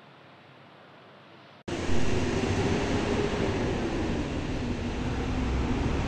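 Quiet room tone, then abruptly, under two seconds in, steady outdoor traffic noise: a low rumble of vehicle engines with a faint steady hum.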